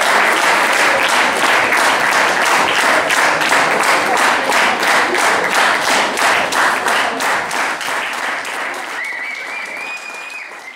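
Audience applauding, the clapping dying away over the last few seconds. About nine seconds in, a thin high tone like a whistle sounds over it, rising slightly in pitch.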